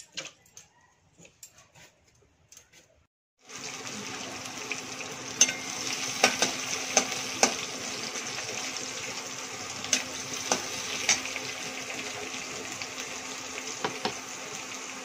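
A few faint clicks of vegetables being peeled by hand. About three and a half seconds in, it switches to oil sizzling steadily in a wok on a gas stove, with a metal spatula clinking and scraping against the pan several times as the vegetables are stirred.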